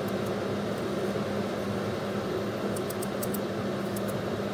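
Steady hum with an even hiss, with a few faint light clicks about three seconds in.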